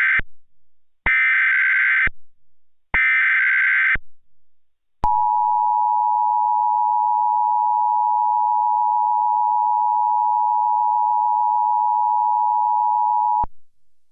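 Emergency Alert System alert tones: the last two of the SAME digital header's three short data bursts, then the steady two-tone attention signal for about eight seconds, cutting off abruptly. Together they announce an emergency broadcast message.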